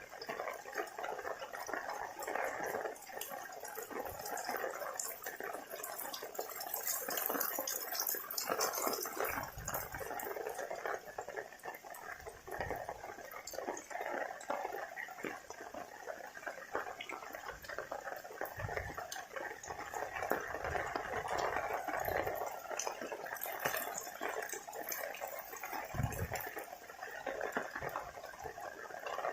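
Heavy rain falling steadily, a dense hiss of pattering drops, with a few brief low thuds scattered through it.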